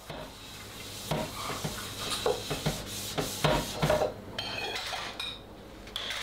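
Kitchen clatter: crockery and utensils knocking and clinking as things are handled in and around a wall cupboard, a string of separate light knocks with a brief ringing clink later on.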